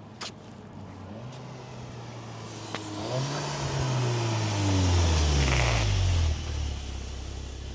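2016 Audi TTS Mk3's turbocharged 2.0-litre four-cylinder driving past: the engine note builds, then falls in pitch as the car goes by, loudest about five seconds in with tyre and wind hiss, and drops away suddenly near six seconds.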